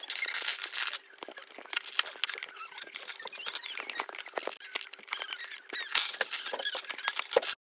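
Small plastic parts of a Bandai capsule-toy model of a Shinkansen N700A seat being handled close to the microphone: irregular clicks, taps and rubbing of fingers on plastic. It stops abruptly near the end.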